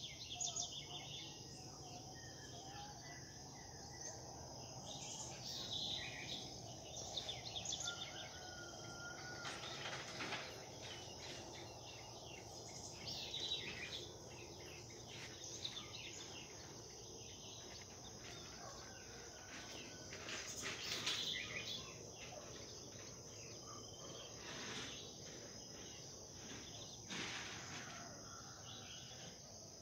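Several birds chirping and calling at intervals over a steady, high-pitched drone of insects.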